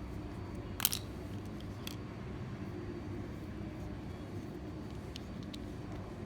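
A few light clicks and taps from small objects being handled, the loudest a short cluster about a second in, over a steady low background rumble.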